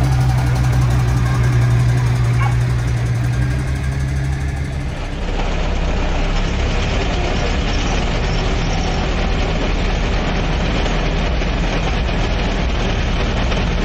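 A Commer lorry's engine running steadily as the lorry pulls a low-loader trailer past. About five seconds in this gives way to the rougher engine and road rumble inside the cab of a vintage petrol-engined Dennis 4-ton lorry as it drives off.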